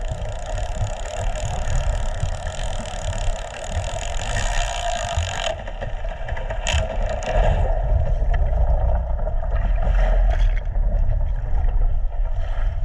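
Steady hum of boat engines and propellers heard underwater, several constant tones over a heavy low rumble of water. The higher tones fade after about five seconds.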